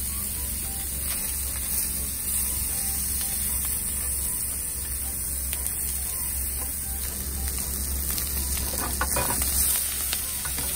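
Chicken thigh pieces sizzling in a frying pan over a gas burner, with a steady low hum underneath. Near the end come a few light clicks as the pieces are turned.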